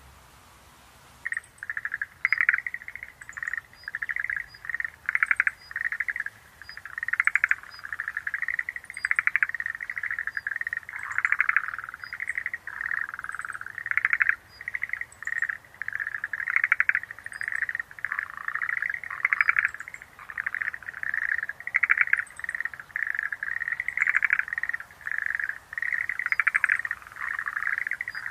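Schlegel's green tree frogs calling in chorus: quick pulsed trills repeated and overlapping one another, starting about a second in, with faint short high chirps above them.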